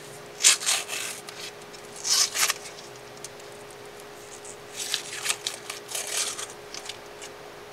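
Short bursts of rubbing and rustling, about four of them, as masking tape is peeled and handled around a freshly painted dipstick, with a faint steady hum underneath.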